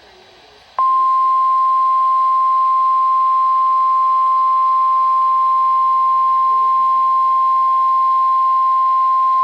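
NOAA Weather Radio's 1050 Hz warning alarm tone: one steady, loud, high beep that starts about a second in and holds unbroken, over faint radio hiss. It signals that a warning broadcast is about to follow.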